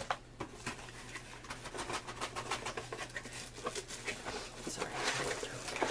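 Cardboard box being handled: scratchy rustling with many small clicks and scrapes, growing busier in the second half.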